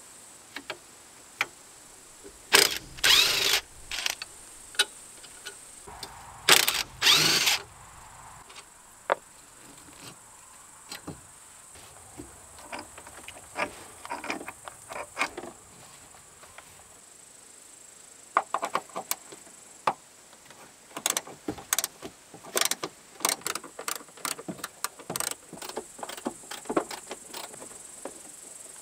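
Cordless impact wrench run in two short bursts, each about a second, loosening a ball-joint nut on a car's front suspension. Later comes a long run of sharp metallic clinks and knocks as tools and suspension parts are handled.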